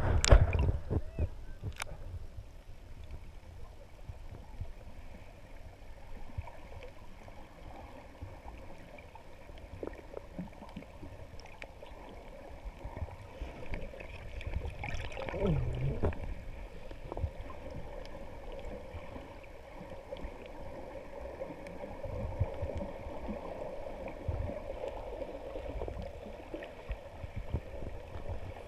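Muffled underwater sound picked up by a camera held below the sea surface: a low rumble of moving water with faint clicks and gurgles, and a brief splash near the surface at the very start.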